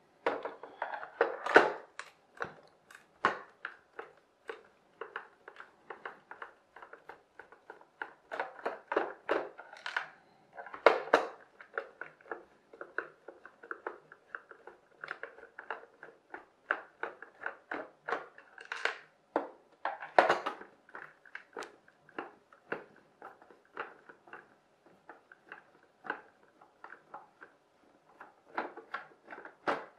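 Screwdriver working screws out of the plastic underside of a Lightning McQueen toy car: many short, irregular clicks and scrapes of metal on plastic, with a few louder knocks as the plastic car body is handled.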